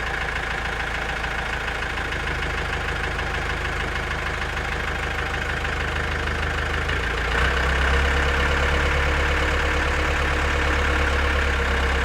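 A vehicle engine running steadily, getting louder about seven seconds in.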